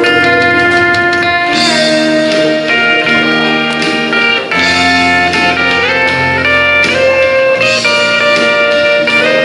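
Instrumental break of a country-gospel song between sung lines: a sustained lead melody whose notes slide up into pitch, over steady backing chords.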